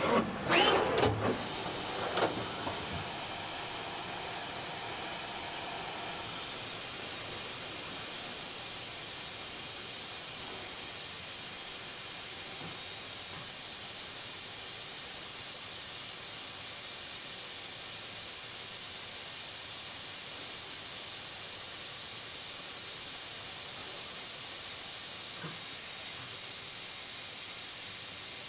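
Citizen Miyano GN3200W CNC lathe machining a metal part: a short clatter with a rising whine in the first second, then a steady high hiss.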